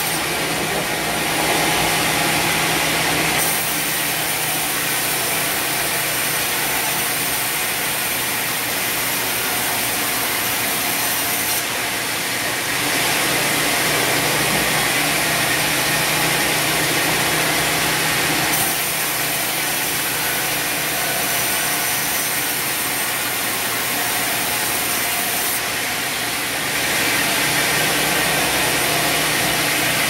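Large vertical band saw running and ripping a log lengthwise: a steady machine drone under a hissing cut that grows louder and softer several times as the log is fed through.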